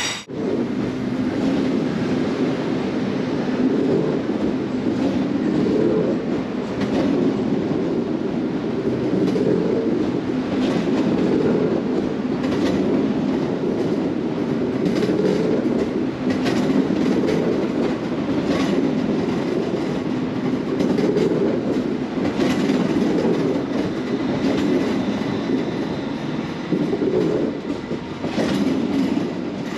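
Avanti West Coast train rolling slowly along the platform: a steady low rumble, with a click of wheels over rail joints every few seconds.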